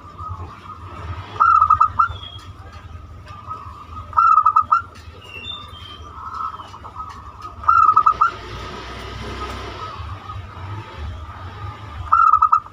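Zebra dove (perkutut) singing its cooing song, a quick run of notes repeated four times, one phrase about every three and a half seconds. Faint chirps and a brief hiss lie between the phrases.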